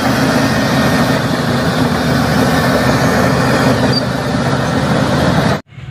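Bulldozer diesel engine running steadily at a low, rumbling pitch, cutting off suddenly near the end.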